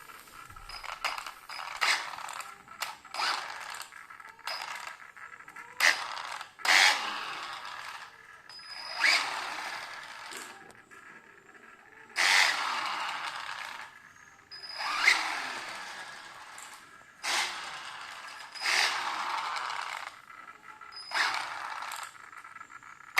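Brushless motor in a Tamiya TT02 RC car chassis revved in a dozen or so short throttle bursts a second or few apart, each a whine with a sharp start whose pitch sweeps up and down, with a metallic scraping rattle. It is an unusual sound from the motor and drivetrain whose cause is not known.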